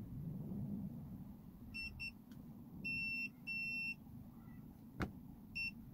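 Digital multimeter's continuity beeper sounding as its probes touch points on a car smart key's circuit board: two quick short beeps, then two longer beeps of under half a second each, and one more short beep near the end, all at the same high pitch. Each beep marks a point connected to ground, the battery's negative contact. A single sharp click comes just before the last beep.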